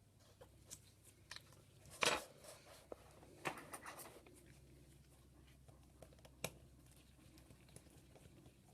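Small clicks, taps and crackly scrapes of tools and parts being handled on an iPad 2 during logic board reassembly. There is a louder crunchy scrape about two seconds in, another about a second and a half later, and a sharp click near the end.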